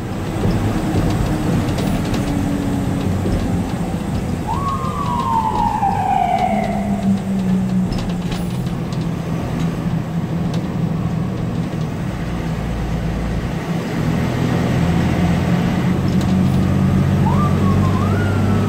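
Fire engine's engine and road noise droning steadily inside the cab while it drives on an emergency response. The siren winds up twice, each time rising quickly and then falling away slowly: once about a quarter of the way in, and again near the end.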